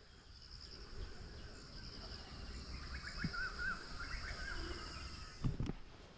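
Outdoor nature ambience: a steady high insect buzz, with a bird singing a short run of warbling chirps in the middle and a couple of soft knocks near the end.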